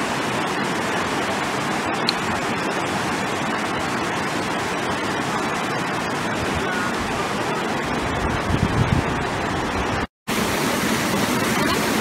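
Steady rushing of thermal spring water cascading over travertine terraces and pools, with a brief dropout about ten seconds in.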